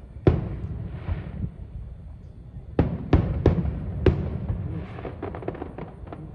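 Aerial fireworks going off. A sharp bang comes about a quarter second in, then four bangs in quick succession around three to four seconds in, then a patter of small crackles near the end.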